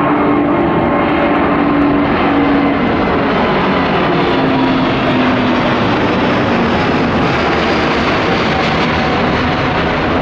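Jet aircraft passing close by at an airport, a loud steady roar with engine tones sliding slowly down in pitch as it goes past.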